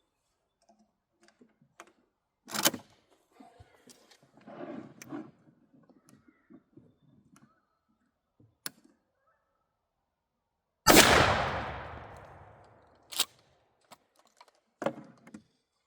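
A few sharp clicks and handling rustles, then, about eleven seconds in, a single shot from a Mossberg 500 12-gauge pump shotgun firing a 3-inch Winchester Double X #5 turkey load. The report dies away over about two seconds, and two more sharp clicks follow.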